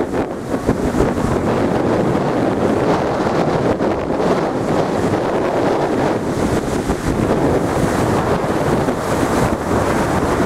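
Strong wind buffeting the microphone over stormy sea surging and breaking in foam against a stone sea wall, a loud, steady rush of noise.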